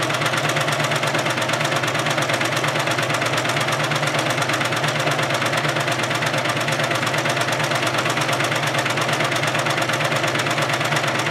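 Babylock coverstitch machine sewing at a steady, fast speed, with a rapid, even needle-and-motor rhythm as it stitches binding onto fabric.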